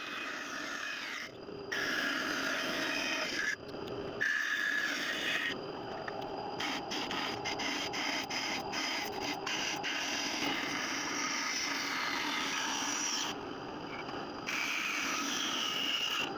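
Band saw cutting through wood along a pattern line: a steady rasping hiss, whose upper range drops out briefly several times.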